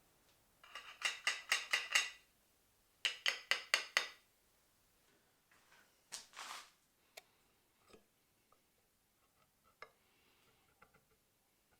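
Hand work on a wood rasp: two quick runs of short, sharp strokes, five or six each, then a brief swish about six seconds in and a few scattered light clicks.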